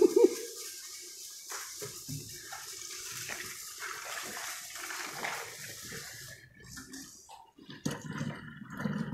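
Liquid ice-cream mix being poured from a pot into the metal canister of an es puter maker: a steady splashing stream of liquid into metal, which thins out about two-thirds of the way through.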